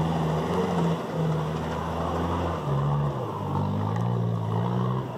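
Engine of an off-road 4x4 working hard as it drives up a loose sand slope. The pitch holds steady, drops a little under three seconds in, then rises and falls as the throttle changes.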